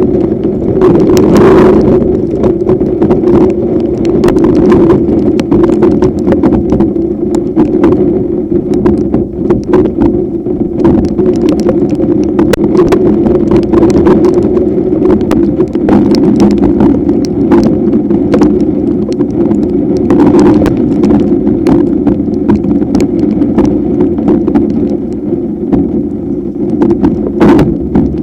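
Strong storm wind buffeting the microphone in a loud, steady rush, with many sharp knocks and ticks scattered through it.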